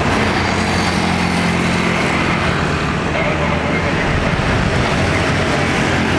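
Jet airliner engines (a Boeing 777) running at taxi power as it turns onto the runway: a steady rumble with a faint high whine on top.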